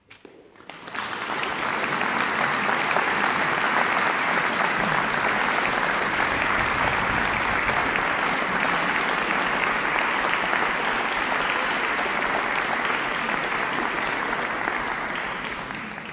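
Audience applauding, building quickly out of silence in the first second, holding steady, and dying away near the end.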